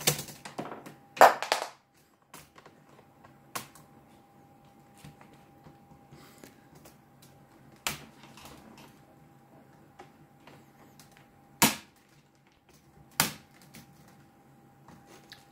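Plastic clicks and snaps of an HP Pavilion 15 laptop keyboard being pried loose from its retaining clips and handled. There is a loud clatter about a second in, then single sharp clicks every second or few, over a faint steady tone.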